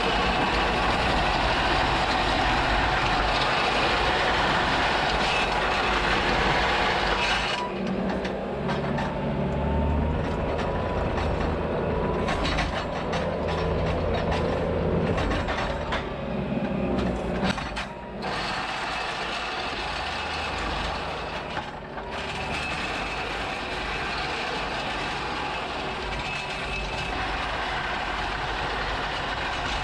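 Bobcat T650 compact track loader running and working, a steady diesel engine note with track and machine noise. The sound shifts several times, the hiss dropping away about seven seconds in and changing again around eighteen and twenty-two seconds.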